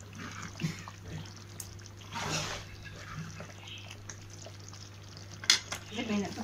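Steel ladle stirring and lifting thick curry in a pot: liquid sloshing and dripping back off the ladle, with a sharp clink of the ladle against the pot about five and a half seconds in, over a steady low hum.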